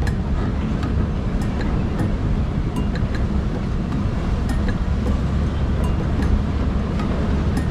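Open-sided safari truck driving over a rough dirt road: a steady low engine and road rumble with scattered sharp rattles and clicks from the vehicle, and wind on the microphone.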